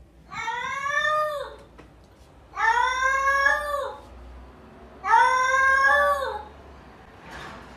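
Domestic cat giving three long, drawn-out meows about a second apart, each rising slightly and falling away at the end.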